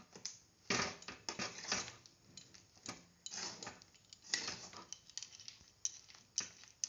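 Metal spatula scraping and clicking against a metal kadhai in quick, irregular strokes, stirring a thick, crumbly mix of ground peanuts and milk powder into sugar syrup.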